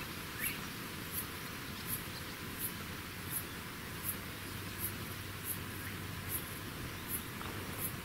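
An insect chirping in a steady rhythm, a short, very high-pitched pulse about every 0.7 seconds, over a steady outdoor hiss.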